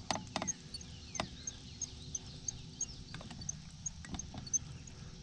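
Quiet ambience aboard a fishing boat on a calm lake: a few sharp light clicks and knocks from gear on the boat, over a faint steady hum. A faint high chirp repeats every half second or so, and a few faint whistles fall in pitch.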